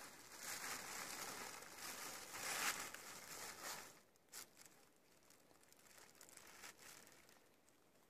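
Plastic bags rustling and crinkling as they are handled. The rustle is louder for the first half, then fainter, with a few light clicks.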